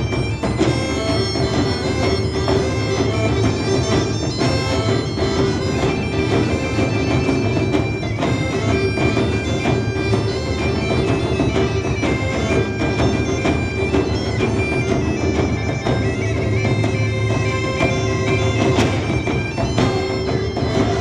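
Bagpipe playing a folk melody over its steady drone, with wine barrels struck as drums in a steady rhythm beneath it.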